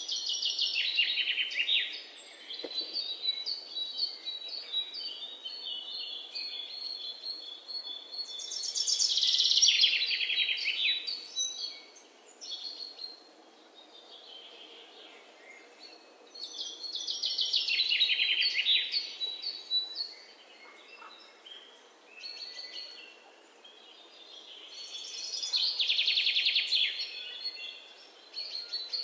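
High-pitched animal calls: steady chirping, and four louder, rapidly pulsing bursts that swell and fade about eight seconds apart.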